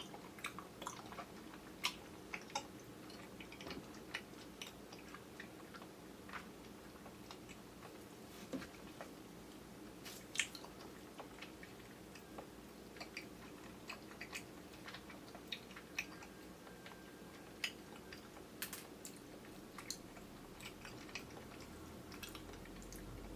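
Chewy grape jelly candies being chewed with the mouth full: scattered soft, wet clicks and squishes, picked up faintly by a camera's built-in microphone.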